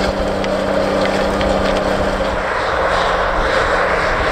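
Deutz-Allis 9170 tractor's diesel engine running steadily under load while pulling a high-speed tillage disk through the soil. About halfway through, the engine note drops back and a broader rushing noise rises.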